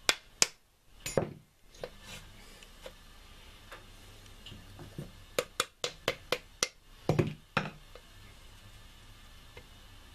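Last two hammer taps driving the countershaft out of a T-90 transmission case. Then metal clinks and heavier clunks as the cluster gear comes down into the bottom of the case: a quick run of sharp clicks about five seconds in, then low clunks about seven seconds in.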